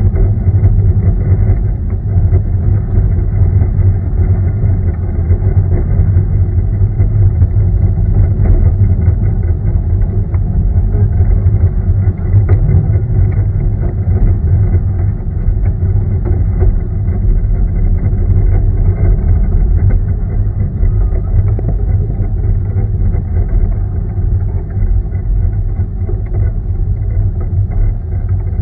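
A 750 mm narrow-gauge steam train running along the line, heard as a loud, steady low rumble with no distinct chuffing beat.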